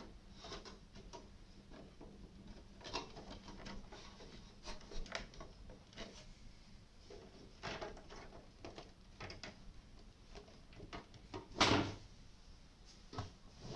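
Power-supply cables and plastic power connectors being handled and plugged into drives inside a desktop PC's metal case: scattered clicks, rustles and small knocks, with one louder knock late on.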